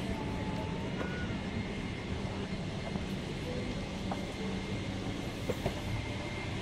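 Steady low hum of a parked Boeing 777-300ER's cabin ventilation, with a thin steady whine above it. A few faint clicks and short snatches of distant voices come through.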